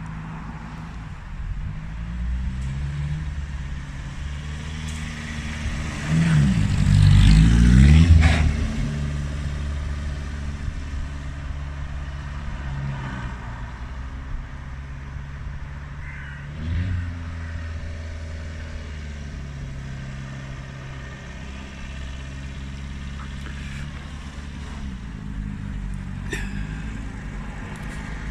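Austin Seven hill-climb special's engine running and revving, its pitch rising and dropping in steps. It is loudest in a surge about six to eight seconds in, with another rise of revs about seventeen seconds in.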